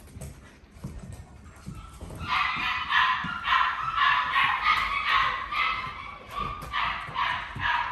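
Poodle puppies yipping and whining in a rapid, high-pitched run of short calls, starting about two seconds in.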